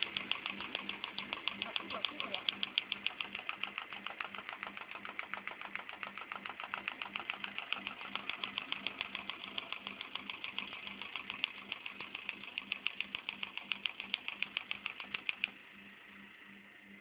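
Paper folding machine running, feeding and folding sheets with a rapid, even clacking of several clicks a second over a steady hum. About 15 seconds in the clacking stops and only a fainter hum is left.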